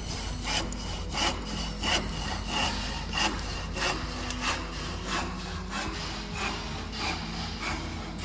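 Hand rip saw cutting through a piece of wood in steady back-and-forth strokes, a rasp on each stroke at about three strokes every two seconds.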